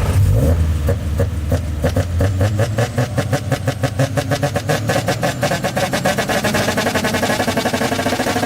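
Car engine running on a misfire (anti-lag style) system, popping in a fast even rhythm of about eight to ten pops a second that quickens slightly as it goes.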